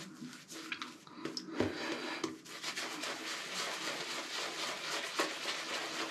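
Synthetic-knot shaving brush (Boti Sky City N3C, 26 mm) working up hard-soap lather: a steady wet rubbing that gets louder about a second and a half in.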